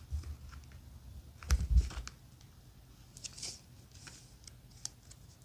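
Hands working at product packaging: scattered light clicks and faint rustles, with low bumps just after the start and again about a second and a half in.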